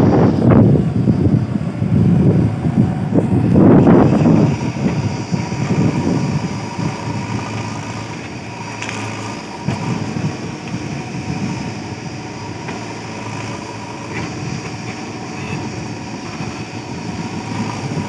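JCB backhoe loader's diesel engine working under load as the backhoe bucket digs out tree roots, louder and surging in the first few seconds, then settling to a steadier drone.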